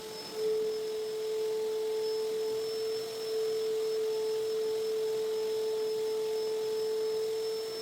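Vacuum cleaner running with a steady whine over its airflow noise, getting louder about half a second in.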